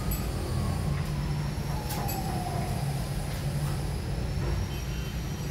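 Steady low background rumble, with a few light knocks as a wooden ceiling frame is lifted and handled against the ceiling.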